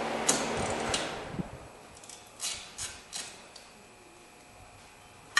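A steady mechanical whir fades out about a second in. A few sharp clicks and three light metallic clinks follow as the 10 mm wheel-cylinder bolts are worked out of the brake backing plate by hand.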